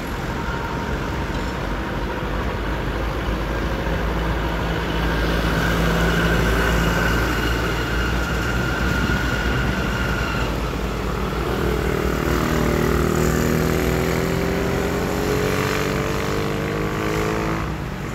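Motor vehicle engines: a steady low rumble, swelling as vehicles pass about six seconds in and again about fourteen seconds in, with a pitched engine drone that glides in pitch over the last few seconds.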